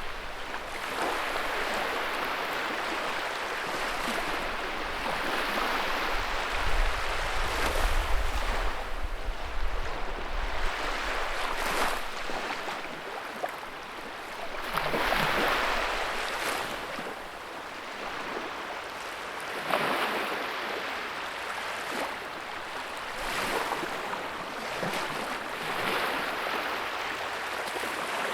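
Wood fire burning in a fireplace: a steady rushing hiss that swells and eases, with sharp crackles and pops here and there. About six seconds in, a low rumble joins for about five seconds.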